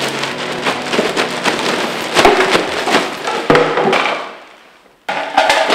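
Plastic bin liner crackling and rustling as it is handled, with scattered sharp knocks; it fades away about four seconds in, and a fresh burst of crackling starts near the end.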